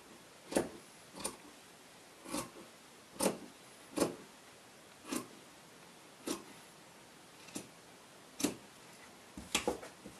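Dressmaker's shears trimming excess off layered fabric in separate snips, about one sharp snip a second. Near the end a quick cluster of knocks.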